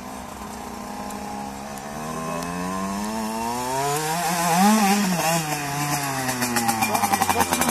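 Motocross dirt bike engine revving, growing louder throughout, its pitch climbing slowly to a peak a little past halfway and then dropping. Near the end a louder engine note with a rapid popping sets in.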